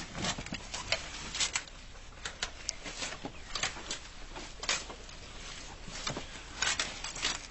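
Goats moving about in their pen: irregular clicks and knocks, several a second, as of hooves and bodies against the pen floor and boards.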